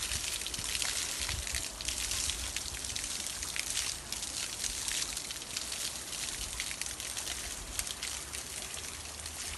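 Running water trickling and splashing steadily, with many small droplet-like ticks in the rush.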